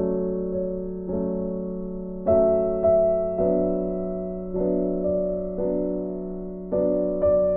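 Background piano music: slow, soft chords over a held low note, with a new chord struck about once a second and left to fade.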